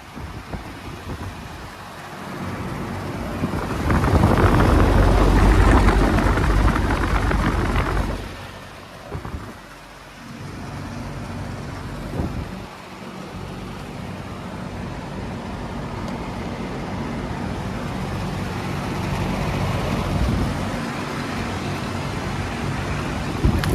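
Outdoor air conditioner units running: a steady hum with fan noise over it. A loud low rumble rises from about four seconds in and drops away about four seconds later.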